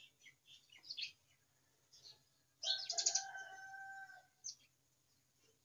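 Small birds chirping in short, repeated high calls, with one louder, steady-pitched call lasting about a second and a half near the middle.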